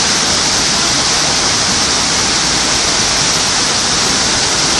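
Waterfall on a mountain creek, its falling water making a loud, steady rush that never lets up.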